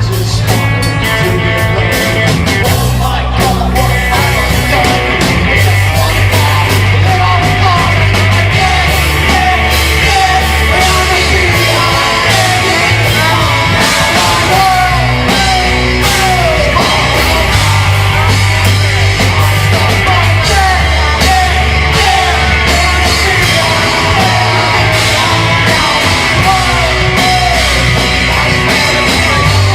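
Loud punk-rock song with sung and shouted vocals over a full band, its bass line stepping between notes every second or two.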